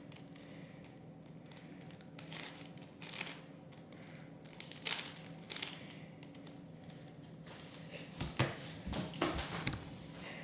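A 3x3 Rubik's cube being twisted by hand: a run of quick plastic clicks and scrapes as its layers are turned, making the checkerboard pattern, with heavier handling of the cube near the end.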